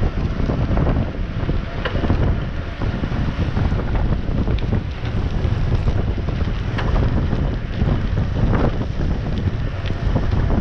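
Wind buffeting the microphone and tyre rumble from a mountain bike rolling fast on a forest road, with scattered sharp clicks and rattles from the bike over bumps.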